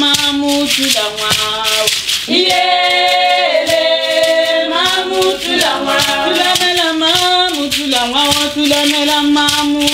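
A group of voices singing a Setswana traditional song in harmony, with long held notes. Dancers' ankle rattles shake along in a steady beat.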